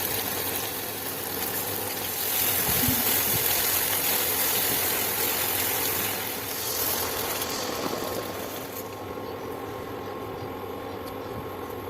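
Hot oil sizzling in a pan as fish or masala cooks, a steady hiss that thins out about nine seconds in.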